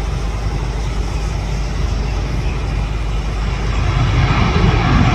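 Aircraft engine noise: a steady, loud rumble and hiss that swells louder near the end as the aircraft draws closer.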